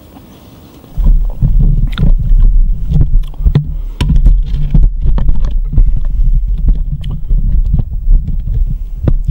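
Handling noise from a camera being picked up and moved about: a loud low rumble against its microphone, starting suddenly about a second in, with many sharp knocks and clicks throughout.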